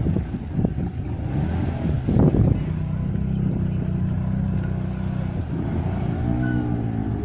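Quad bike (ATV) engine running steadily under load, with a short noisy burst about two seconds in. Near the end its pitch dips and rises as it is revved.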